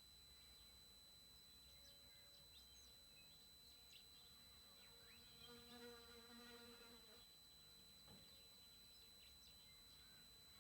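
TriStar TS-MPPT-60 solar charge controller squealing: a steady, thin, high-pitched whine that holds one pitch. Short bird chirps sound over it, and a buzz rises about five seconds in and lasts about two seconds.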